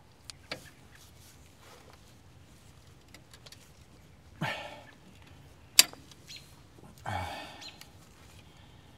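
Quiet hand-work at a disc-brake caliper while the guide pins are greased and fitted: faint handling noises, two short rasping sounds, and one sharp click a little before six seconds in, the loudest sound.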